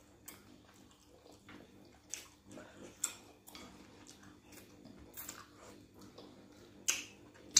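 Close-up wet mouth sounds of eating fish and pounded yam by hand: scattered short smacks and chewing clicks, with the loudest smacks near the end.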